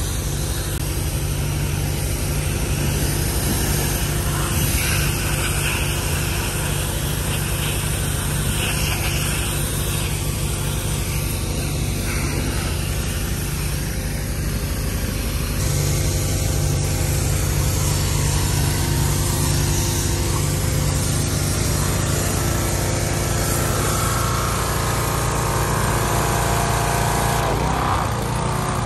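1989 Honda Accord's four-cylinder engine idling steadily through a patched-up exhaust.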